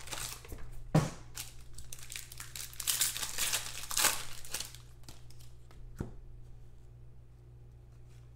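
Wrapper of a trading-card pack crinkling and tearing as it is ripped open by hand, with a sharp click about a second in; the crackling dies down after about five seconds.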